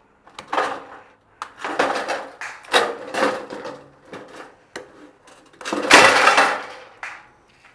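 Clattering and rustling of objects being handled and set down, in a string of bursts with small clicks between, the loudest about six seconds in.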